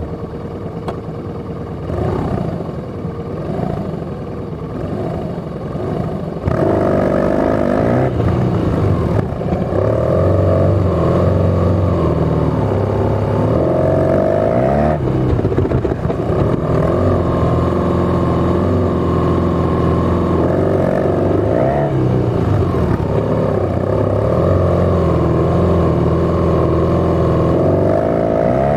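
Police motorcycle engine revving up and down again and again as the bike is ridden through tight, slow circles around cones. It gets louder about six and a half seconds in.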